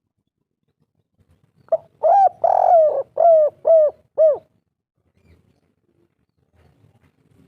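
Spotted dove (tekukur) giving one cooing phrase about two seconds in. A short note and two longer coos are followed by three short coos, each falling at its end: the 'kuk 3' ending of the call.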